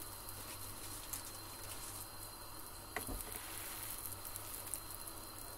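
Thin layer of oil crackling and sizzling quietly in a frying pan as burger buns toast on it. A soft knock about three seconds in as a bun is set down in the pan.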